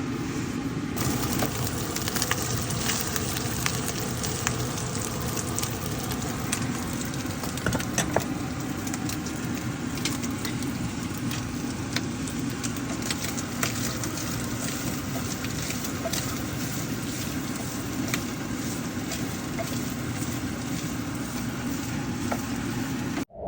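Meat sizzling as it cooks, a steady hiss with frequent sharp crackles and pops.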